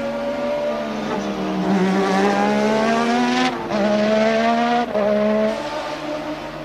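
1988 Formula One car engine accelerating hard, its pitch climbing, with two sudden drops at upshifts about three and a half and five seconds in. It then fades away.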